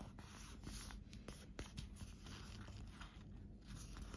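Faint rustling and sliding of a sheet of A4 paper as it is folded and creased by hand, with a few soft clicks.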